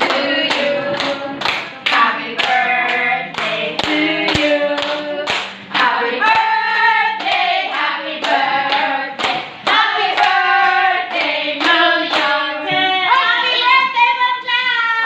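Several voices singing a song together while clapping along in a steady beat, about two claps a second.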